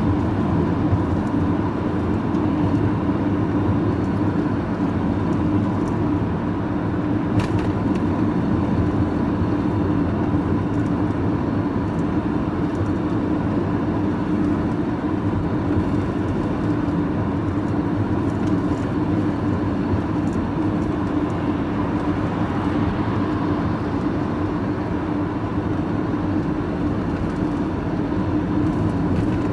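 Steady engine drone and road noise inside a vehicle's cab while driving at a constant pace, with a continuous hum.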